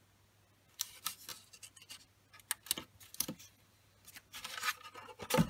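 Red double-sided adhesive tape being pulled off its roll and pressed along a cardstock flap: scattered light clicks and paper rustling, denser near the end.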